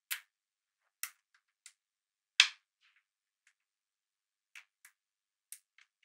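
Small magnetic balls clicking together as they are snapped into place one by one: a scattered series of sharp little clicks, the loudest about two and a half seconds in.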